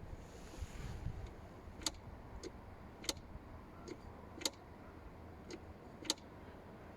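Sharp, short ticking clicks, about one every half second to second, some louder than others, over a low steady background rumble.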